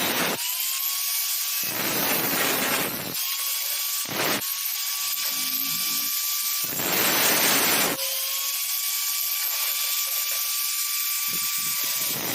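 Electric power tool working metal: rough stretches of cutting or grinding alternate with a steadier whine that rises slightly in pitch each time the tool comes off the work.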